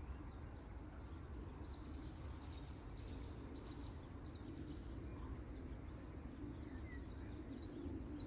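Steady low outdoor rumble, like wind on the microphone, with faint scattered bird chirps.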